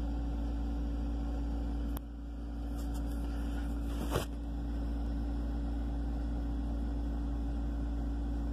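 Steady low electrical hum with a constant tone. There is a click about two seconds in, where the hum dips and slowly comes back, and a brief knock a little after four seconds.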